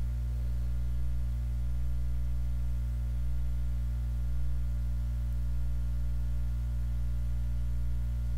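Steady low electrical hum with a stack of evenly spaced overtones, unchanging throughout: mains hum picked up by the recording chain.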